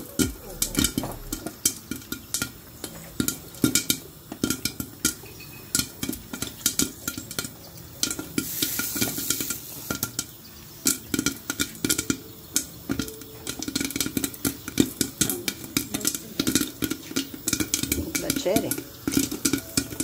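Popcorn kernels popping in a lidded cast-iron cauldron with oil and caramelized sugar: many irregular sharp pops and ticks against the lid over a steady sizzle.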